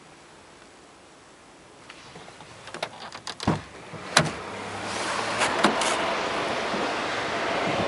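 Clicks and clunks of a 2004 Hyundai Elantra's rear door handle and latch being worked about three seconds in. A steady rush of wind noise on the microphone follows, with a few more sharp clicks.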